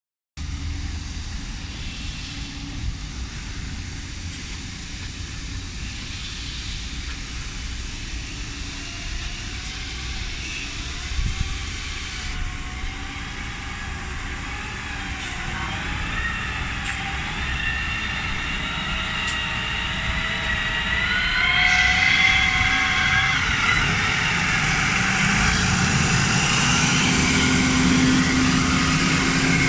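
Diesel engine of a 5-ton rough-terrain forklift, a Cummins QSF3.8 four-cylinder, running as the machine approaches. It grows steadily louder from about halfway, with a wavering whine over the engine noise.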